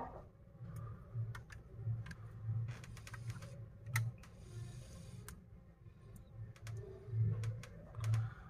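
Scattered light clicks and taps of fingers and nails handling a smartphone held together with rubber bands, over a faint low hum.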